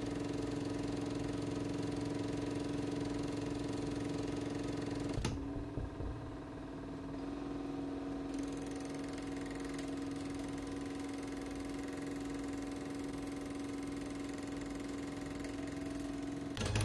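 A steady, pitched mechanical hum like a small machine running. It shifts to a slightly different hum after a short knock about five seconds in.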